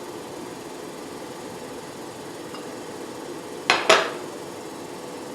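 Two sharp clicks about a quarter second apart, a little before four seconds in, as the spray mist gun is handled and filled, over a steady low hum from the running facial machine.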